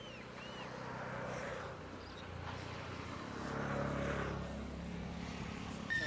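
An engine running steadily, its hum growing louder around the middle, with a bird giving a couple of short chirps at the start.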